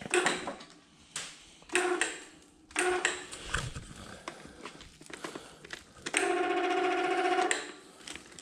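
Electric chain hoist jogged in four short bursts, each starting with a click and a brief hum, then run steadily for about a second and a half near the end, with the hook chain rattling as a hung engine is set down and unhooked.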